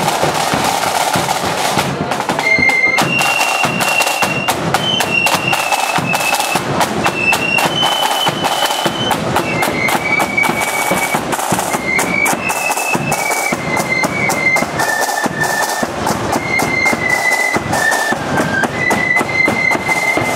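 Marching flute band playing: side drums and a bass drum beating, with the shrill melody of the flutes coming in about two and a half seconds in.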